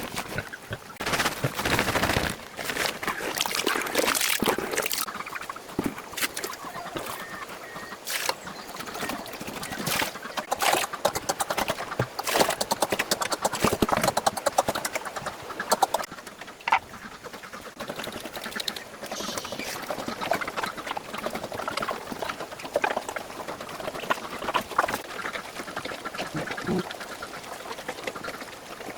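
Irregular animal calls mixed with many short clicks and knocks.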